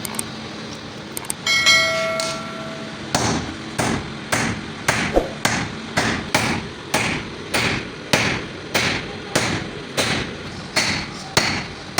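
Hand hammer striking steel on an anvil, forging a piece of drill bit. A single ringing metallic strike comes a little under 2 s in, then a steady rhythm of blows at a little under two per second.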